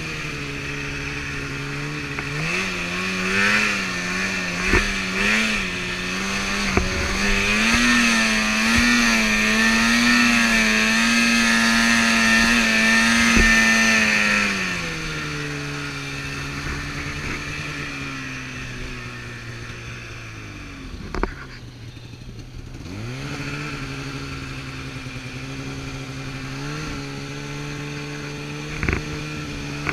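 Snowmobile engine running under throttle: it revs up over the first few seconds, holds high revs for several seconds, then eases back to a lower steady run, drops nearly to idle about two-thirds through and picks up again. A few sharp knocks are heard along the way.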